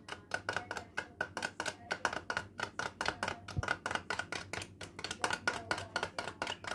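Metal spoon rapidly beating an instant coffee mixture in a bowl, clicking against the bowl about six times a second, to whip the coffee into a foam.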